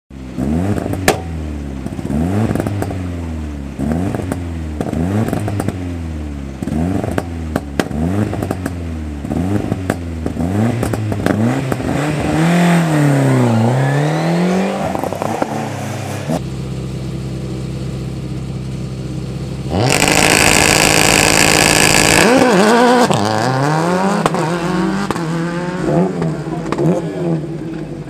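Ford Escort RS Cosworth rally car's turbocharged four-cylinder engine blipping the throttle on the start line, about one rev a second, then a longer rise and fall of revs. Later rally engines held at steady revs, a harsh loud rush of noise for about two seconds, then revs climbing again and again as a car pulls away through the gears.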